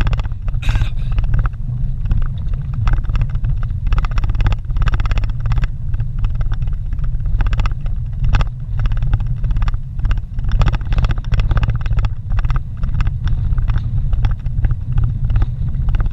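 A vehicle driving on a rough dirt road, heard from inside the cabin: a steady low engine and road rumble with frequent short knocks and rattles.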